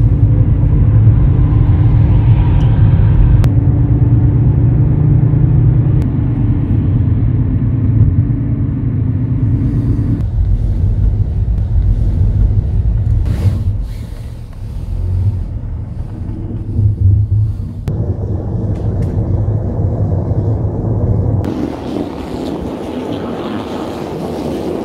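Car driving, heard from inside the cabin: a steady, loud low rumble of road and engine noise. It gets quieter about ten seconds in and cuts off a few seconds before the end.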